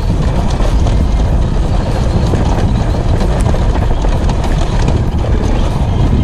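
Enduro dirt bike being ridden along a bumpy trail, its engine running under wind buffeting on a helmet-mounted camera's microphone, with short knocks and rattles from the bike over the rough ground.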